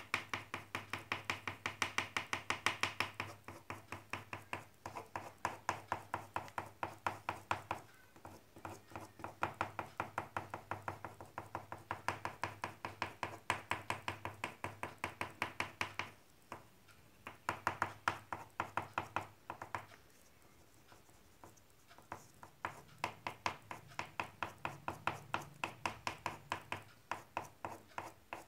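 Black oil pastel stroked in quick short dabs on a paper drawing sheet on a table, a rapid run of taps about four or five a second, broken by a few short pauses.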